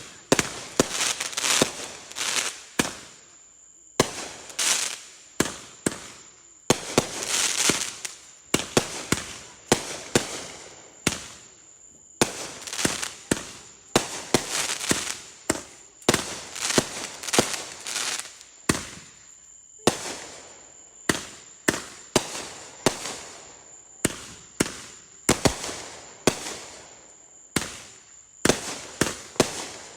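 Consumer fireworks going off in rapid succession: dozens of sharp bangs at irregular intervals, often a couple a second, with crackling and fizzing between them.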